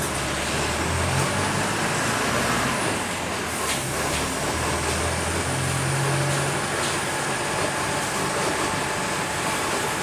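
Bus engine running under way with road noise, heard from inside the bus; the low engine hum shifts a little in pitch and strength as the bus drives.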